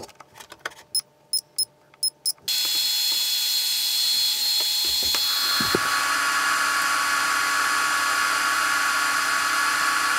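A few light clicks, then cooling fans start suddenly about two and a half seconds in and run with a loud, steady rushing whir. The tone of the whir shifts a few seconds later as another fan joins in.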